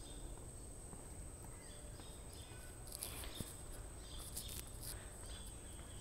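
Mangrove forest ambience: a steady high-pitched insect drone, with faint bird chirps now and then and a low rumble underneath.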